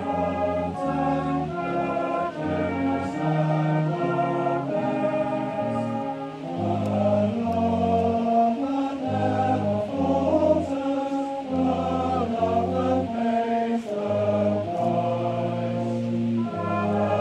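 Brass band of cornets, tenor horns and euphoniums playing a slow hymn in full sustained chords, which change about once a second.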